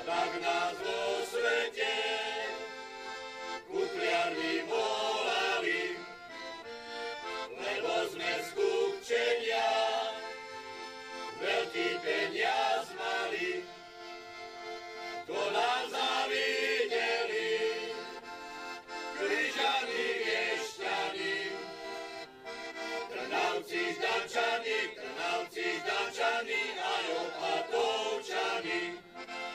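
Piano accordion playing a lively folk tune, in phrases a few seconds long.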